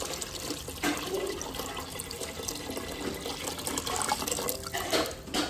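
Water poured in a steady splashing stream into a stainless steel pot of uncooked rice and black-eyed peas.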